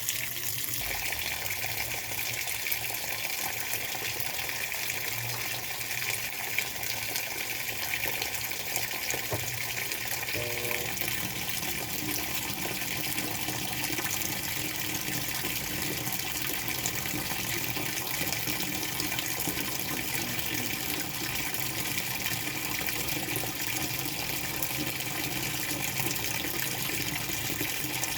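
Washing machine filling: a steady rush of running water.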